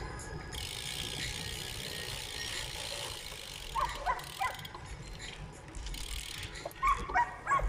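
Bicycle freewheel ticking as the bike coasts along a paved path, over a steady low rumble of tyres and wind. A few short distant calls come about four and seven seconds in.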